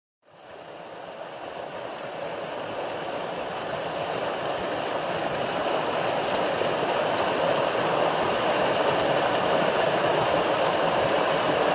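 Mountain stream rushing over rocks and small cascades: a steady rush of water that fades in from silence at the start and grows louder over the first few seconds.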